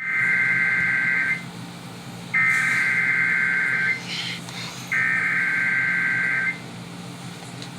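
Emergency Alert System SAME header: three bursts of screeching digital data tones, each about one and a half seconds long with about a second's gap between them. The encoded header that opens an EAS alert.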